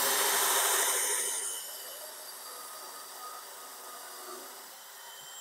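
Cordless DeWalt Atomic drill spinning a stepped pocket-hole bit into 3/4-inch plywood through a pocket-hole jig: a steady whirring hiss. It is louder for about the first second and a half, then settles lower and runs on.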